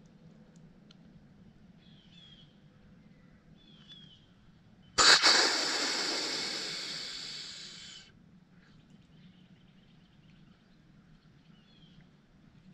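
A hand-held tube deer call blown once: a sudden, loud, hissing blast about five seconds in that fades away over about three seconds. It is blown to spook young deer away.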